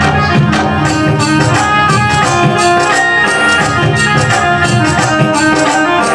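Live Rajasthani devotional folk music: a melody instrument holding steady notes over busy, rhythmic percussion with jingling strikes.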